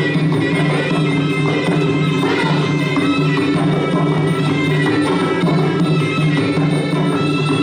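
Traditional Khmer boxing fight music: a reed oboe plays a melody over a steady drone, with hand drums and small cymbals keeping the beat.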